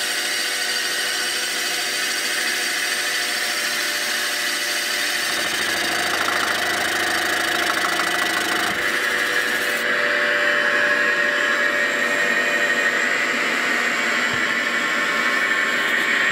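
CNC mill spindle running as a boring bar cuts a cylinder bore in a Lotus 910 aluminium engine block. A steady machining whine with several held tones that shift a couple of times partway through.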